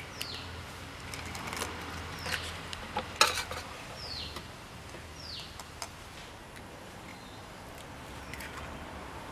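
Eggs being cracked against a steel pot: a few sharp taps and shell cracks, the loudest about three seconds in. Behind them a bird repeats a short falling whistled call about five times.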